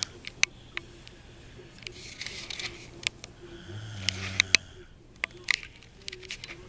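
Snoring: one low snore about four seconds in, with a breathy rush of air a second or two before it. Sharp clicks and taps are scattered throughout and are the loudest sounds.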